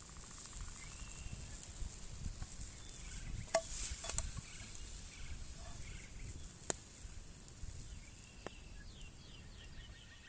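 Forest ambience: a steady high insect hum with faint bird chirps, broken by a few sharp clicks or crackles about three and a half, four, six and a half and eight and a half seconds in.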